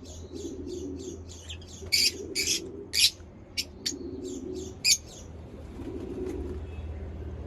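Lovebirds chirping in quick succession, with several loud shrill calls in the first five seconds; the chirping thins out after that.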